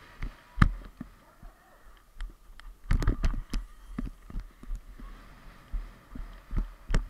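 Galloping horse under a rider, heard from a camera on the rider's helmet: irregular heavy thuds of hoofbeats and jolting knocks, with a quick cluster of sharp knocks about three seconds in.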